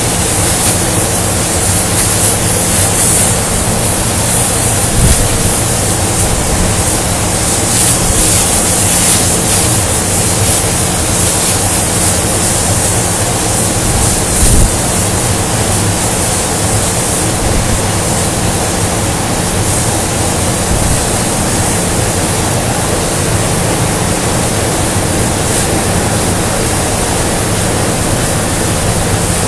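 Loud, steady industrial shop noise from steel-fabrication machinery: a continuous hissing roar over a low electrical hum. A brief knock sounds about five seconds in, and another about fourteen seconds in.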